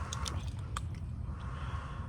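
Close-up eating and food-handling noises from seafood: a few sharp clicks and cracks over a steady low rumble.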